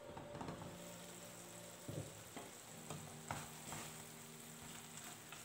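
The glass lid is lifted off a nonstick pan, then a spatula stirs a thick onion, tomato and cashew masala with a faint sizzle and several scraping clicks against the pan. The water added earlier has cooked off.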